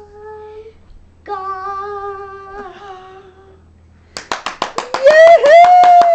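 A singer holds two long final notes with no accompaniment heard. About four seconds in, fast clapping starts, and a loud voice glides up and then falls away over it.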